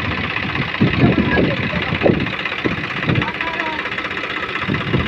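Swaraj 855 three-cylinder tractor running with its PTO-driven straw reaper (bhusa machine): a steady machine noise with dense blowing hiss, broken by irregular low thumps and knocks.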